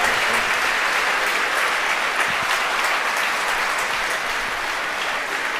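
Crowd applauding steadily: a dense, even patter of many hands clapping.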